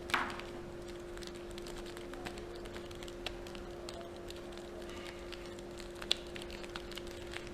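Snake cube puzzle being twisted and folded: its cubelets knock and click against each other in quick, irregular taps, with a louder click about six seconds in, over a faint steady hum.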